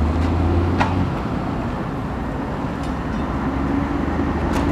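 Steady low hum of a running vehicle amid street traffic noise, with one short sharp sound about a second in.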